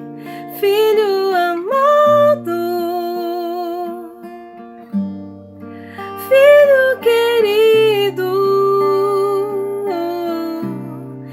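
A slow worship song: a singing voice holding long notes with vibrato over acoustic guitar, with a dip in the singing just before the middle.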